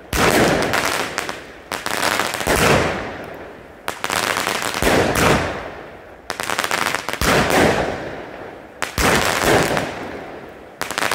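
Consumer firework battery (cake) from Argento firing shot after shot, about one every one to two seconds. Each sharp report is followed by a fading crackle of the burst.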